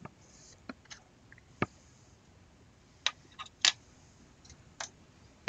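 Light, irregular clicks and taps of small paintball-marker parts being handled on a tabletop, about eight in all, with the loudest few between three and five seconds in.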